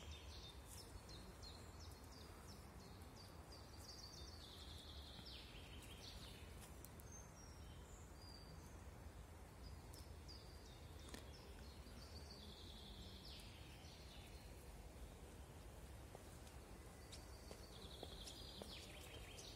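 Faint forest ambience: a songbird repeats a short descending song about every five or six seconds, with scattered faint ticks like light drizzle, though it is not rain.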